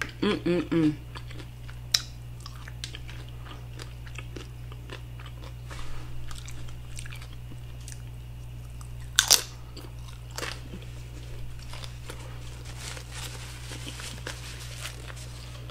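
Close-up eating sounds: a crisp hard taco shell is bitten and chewed with a mouth closed, with the loudest crunch about nine seconds in and short 'mm' hums at the start. A paper napkin rustles against the mouth near the end.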